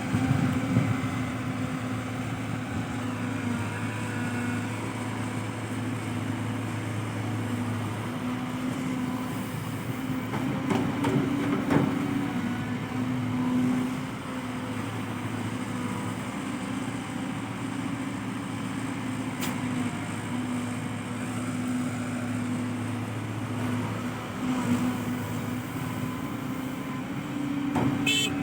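Heavy diesel engine running steadily, with a few knocks about ten to twelve seconds in.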